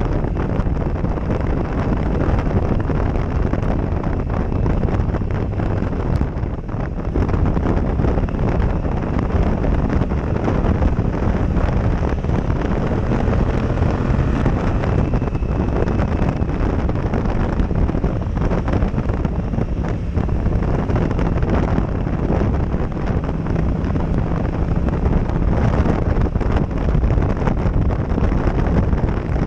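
Heavy wind rushing over a helmet-mounted GoPro's microphone on a moving motorcycle, steady throughout, with the Yamaha MT-07 Tracer's parallel-twin engine running underneath.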